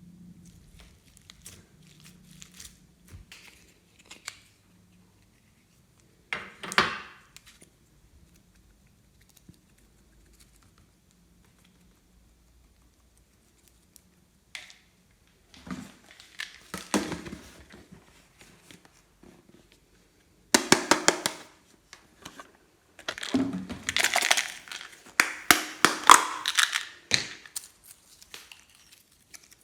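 Hands squishing and poking glossy slime, several bursts of dense, wet crackling clicks separated by quieter pauses.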